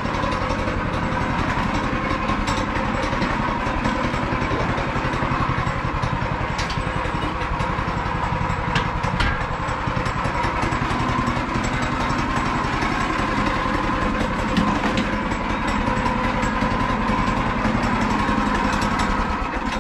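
Small go-kart engine on a Yerf Dog 3203 idling steadily, then shut off at the very end.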